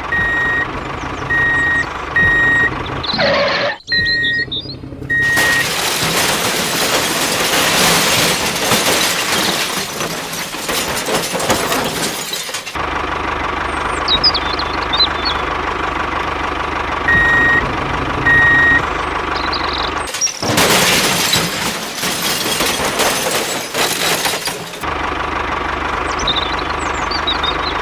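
A vehicle engine running steadily, with a reversing alarm beeping at an even pace near the start and again about two-thirds through. Two long spells of loud rushing noise cut in, the first lasting about seven seconds and the second about four. Faint chirps come in between.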